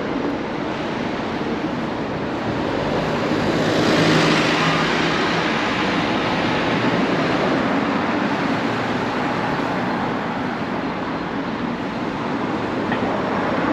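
Street traffic: a motor vehicle passes close by, its engine and tyres swelling to a peak about four seconds in, over a steady wash of road noise from passing cars.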